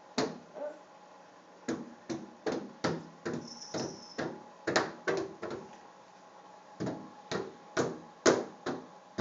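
Small hands slapping a glass sliding door, a string of sharp slaps two or three a second, with a short pause after the middle and the loudest slap near the end.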